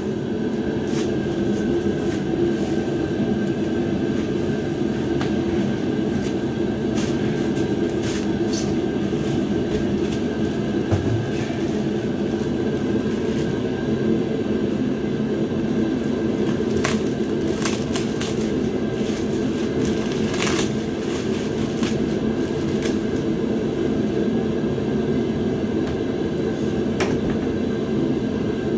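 Steady mechanical drone of a running machine, with a few light clicks and knocks in the second half.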